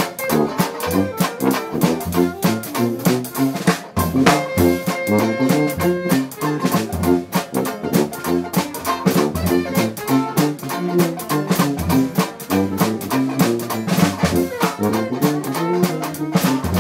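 Live Dixieland jazz band playing, with tuba, trombone and drum kit keeping a steady beat; a note is held for about two seconds around four seconds in.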